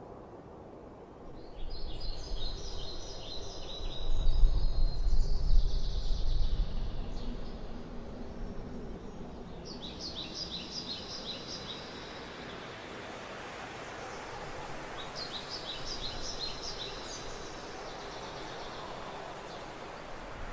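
Forest ambience with a steady rustling noise bed. A bird sings three short bursts of rapid, repeated high notes. A loud low rumble swells a couple of seconds in and fades out by about seven seconds.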